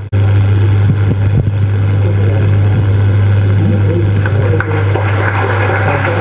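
Loud, steady low electrical hum from the hall's microphone and sound system, cutting in abruptly just after a brief dropout at the start, with faint shuffling and murmur beneath it.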